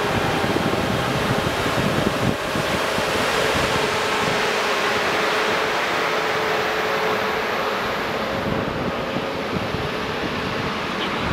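Czech class 151 electric locomotive 151.006 moving off with its express train, then its passenger coaches rolling past as the train gets under way: a steady rushing rumble with a held hum through it.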